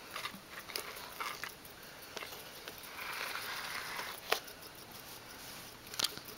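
Handling noises on a duct-tape-covered cardboard toy plane: scattered sharp clicks and taps, with about a second of scratchy rubbing roughly three seconds in.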